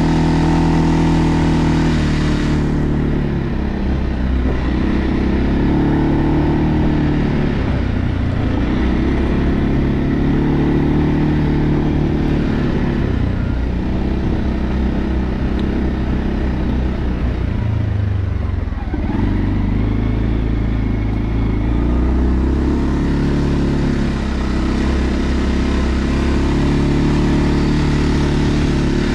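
Segway Snarler AT6 L ATV's 570 cc single-cylinder four-stroke engine running while under way, its pitch rising and falling several times as the speed changes, with a brief dip about two-thirds of the way through.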